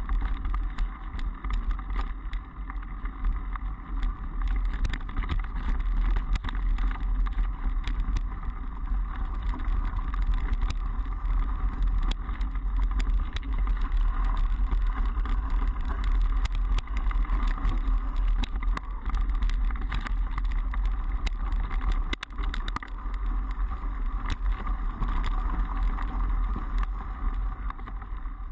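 Mountain bike ridden along a dirt trail: a continuous low rumble of wind and tyre noise on the microphone, with frequent small rattles and clicks from the bike jolting over bumps.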